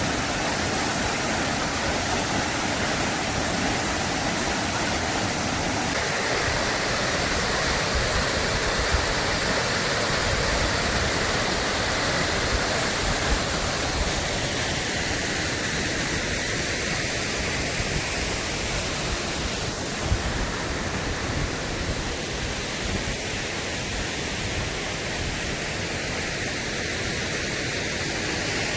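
Waterfall pouring, a steady, unbroken rushing of falling water, with one brief tap about twenty seconds in.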